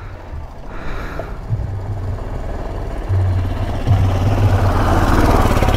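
Motorcycle engine running, growing louder from about three seconds in.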